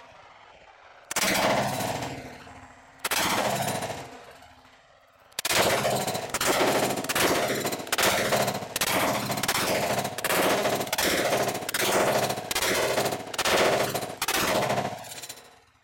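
Gunfire from an MP5K-type 9mm submachine gun: two separate reports about two seconds apart, then a steady string of shots at about two a second for some ten seconds, each trailing off in an echo.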